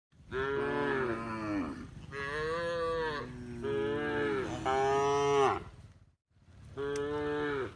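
Cows mooing: a string of about five long moos, one after another with some overlap, the last after a brief pause.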